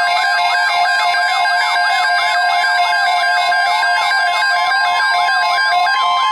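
NOAA Weather Radio 1050 Hz alert tone held steady, with a fast warbling electronic alarm over it whose pitch sweeps up and down about four times a second. The warble stops near the end while the steady tone keeps going; together they mark the start of an emergency alert.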